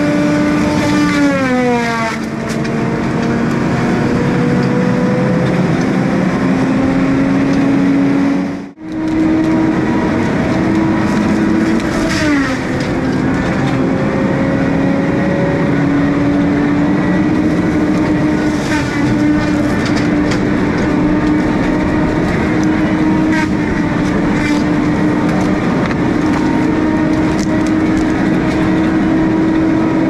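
Tracked feller-buncher with a disc-saw felling head running hard: a steady, whining machine drone whose pitch dips about a second in and again about twelve seconds in. The sound cuts out for a moment near nine seconds.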